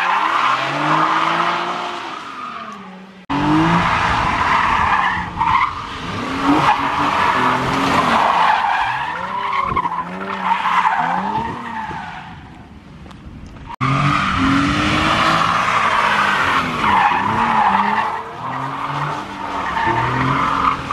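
Car drifting: the engine revs rise and fall again and again over continuous tire squeal. The sound jumps abruptly louder about three seconds in and again near fourteen seconds.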